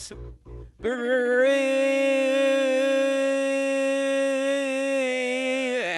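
A long held vocal-like note, about five seconds, with a slight waver, sliding down in pitch as it ends. Before it, for the first second, a low pulsing hum.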